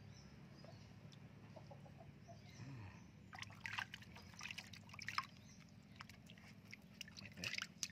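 Small splashes and trickling water in a plastic washtub as a wet kitten is dipped and rinsed by hand, starting about three seconds in.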